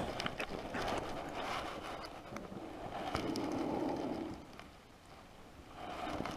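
Wind buffeting the microphone in swells, with scattered small clicks and rustles of hands handling gear at an ice-fishing hole; it dies away briefly about three-quarters of the way through.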